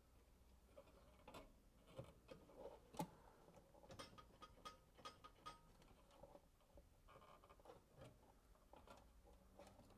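Faint, scattered small clicks and taps from hands working at a steel drawer runner and side cutters trimming a thin nylon cable tie. The sharpest click comes about three seconds in.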